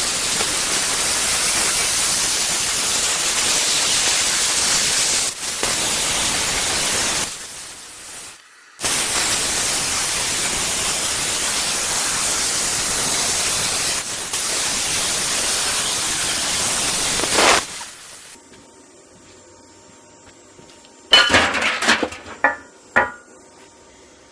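Small plasma cutter hissing steadily as it cuts through thick steel, near the top of what the machine can cut. The arc drops out about seven seconds in, restarts, and stops for good after about eighteen seconds. A few seconds later come several sharp metal clanks.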